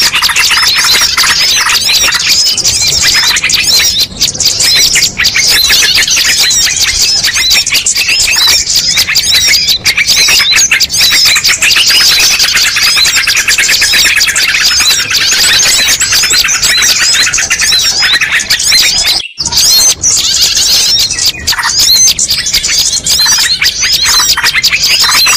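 Dense chorus of many small birds chirping and twittering at once, a mixed-species bird-lure recording. The chirping is loud and unbroken apart from a momentary cut-out about nineteen seconds in.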